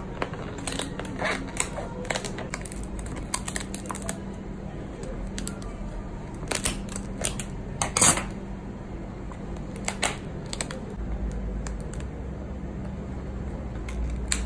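Kitchen shears snipping and crunching through the underside shell of a slipper lobster, then the shell cracking and crackling as it is pried open by hand, with the sharpest cracks about seven and eight seconds in. A steady low hum runs underneath.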